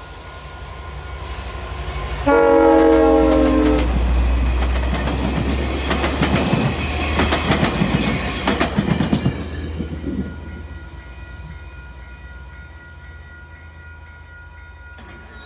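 West Coast Express F59PHI diesel-electric passenger locomotive 901 sounding its Nathan K5CA-LS five-chime horn in one short blast about two seconds in. The train then passes close by, wheels clattering over the rail joints, and fades away after about ten seconds.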